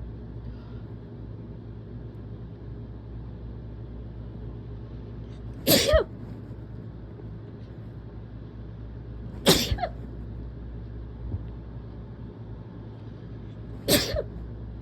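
A person sneezing hard three times, about four seconds apart, each a sudden explosive burst. They are sneezes brought on while sick with a cold.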